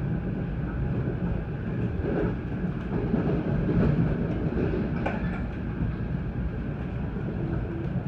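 NJ Transit commuter train in motion, heard from inside a passenger car: a steady low rumble of wheels on rail with a few light clicks.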